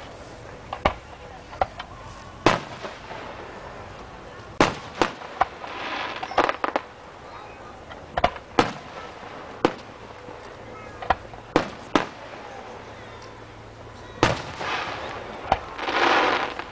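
Aerial fireworks shells bursting, over a dozen sharp bangs at irregular intervals, with two longer stretches of rushing noise, about six seconds in and near the end.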